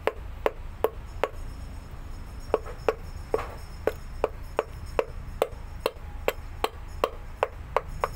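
A hammer tapping a wooden drift to drive the piston down into the cylinder of a MAN D2066 diesel engine's single-piston air compressor. Sharp, evenly spaced knocks come about two to three a second, each with a short ring, with one brief pause a second or two in.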